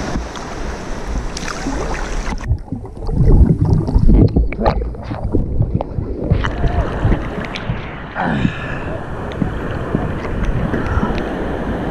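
Sea water sloshing and splashing against a camera held at the water surface, with wind buffeting the microphone. From about two and a half to six seconds in, the sound goes muffled, with heavy low thumps and gurgles as the camera dips into the water, then it opens out again to surface splashing.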